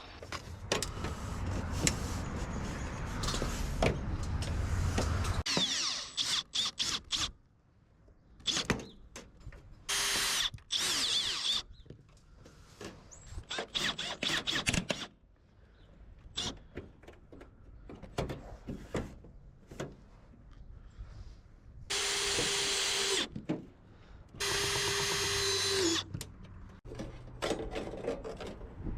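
Cordless drill driving screws to fasten gutter-guard panels, in separate runs: two short ones near the middle and two longer ones near the end, with clicks and knocks of handling between. A stretch of steady noise fills the first few seconds.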